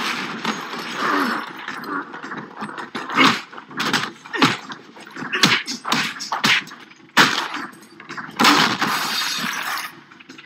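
Film fight-scene sound effects: a rapid run of sharp blows, thuds and crashes with breaking glass. The loudest hits come a little after three seconds and about seven seconds in.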